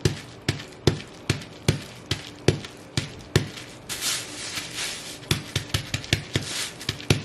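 Bubble wrap popping under stomping fur-covered Ugg boots: sharp separate pops, a few a second. About four seconds in comes a stretch of crackling, crumpling plastic, and then faster pops near the end.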